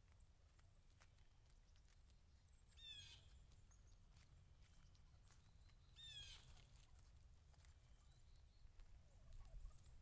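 Faint sounds of a flock of wild turkeys feeding in grass: scattered light ticks of pecking and steps, and two short, high calls of quick falling notes, about three and six seconds in.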